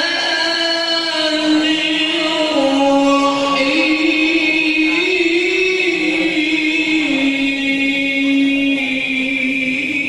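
Qur'an recitation by a qori: one voice holding long melismatic notes whose pitch steps and wavers slowly up and down without break.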